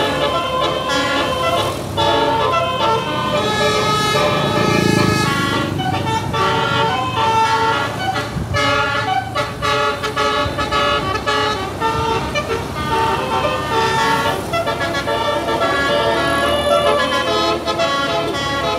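Tour bus 'telolet' multi-tone horn playing a rapid melody, several horn notes sounding together and changing pitch every fraction of a second.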